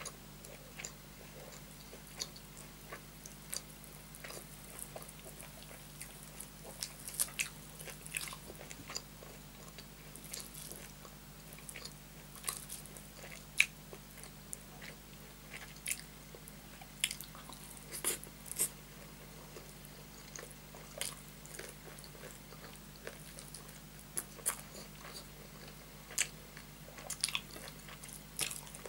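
Close-miked eating by hand: wet chewing and sharp mouth clicks of rice and spicy curry, with fingers squishing and mixing rice on the plate. Irregular crackly clicks come throughout, some much louder than the rest.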